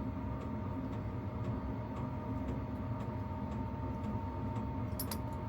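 Steady low machine hum with faint, regular ticks about twice a second, and one sharp click near the end.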